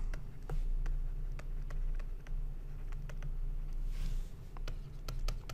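Stylus writing on a tablet screen: a series of light, irregular ticks and taps as letters are drawn, over a steady low hum.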